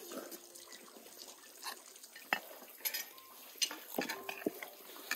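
Forks and spoons clinking and scraping against plates as several people eat, with a handful of sharper clinks in the second half.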